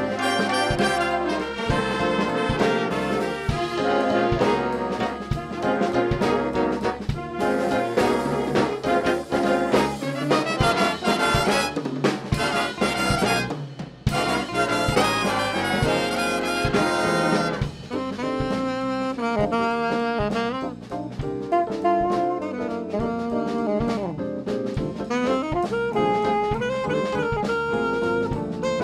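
Jazz band playing: brass and saxophones over a drum kit, with a brief break about halfway through.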